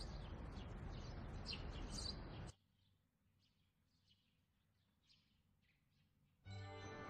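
Outdoor ambience: a steady rush with birds chirping, cutting off suddenly after about two and a half seconds into near silence with a few faint chirps. Music comes in near the end.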